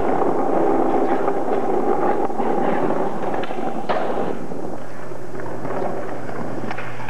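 Skateboard wheels rolling on concrete, with sharp cracks from tail pops and board landings, the loudest about four seconds in.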